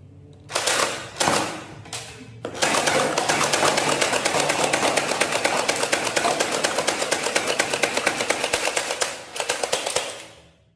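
Battery-powered toy gun firing: two short bursts, then a long rapid rattle of about eight to ten shots a second, and two more short bursts near the end.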